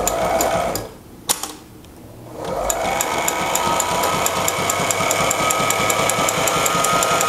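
Sailrite LSZ-1 Ultrafeed portable walking-foot sewing machine stitching through two layers of leather: a short run and a click, then from about two and a half seconds in a steady motor hum with a regular stitch-by-stitch ticking. This is a test seam after the upper thread tension was backed off to clear knots showing on top.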